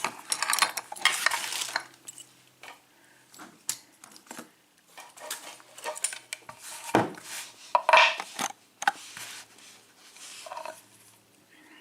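Small metal parts clinking and rattling as lockpicking tools and a euro cylinder lock are handled, with scattered sharp clicks, a knock about seven seconds in and a louder clatter just after it.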